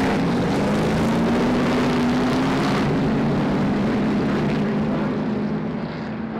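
Several Super Stock race car engines running together at speed, a steady overlapping drone with pitches that drift slightly; it grows quieter and duller about five seconds in.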